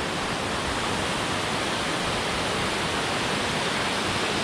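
Waterfall crashing, a loud steady rush of falling water.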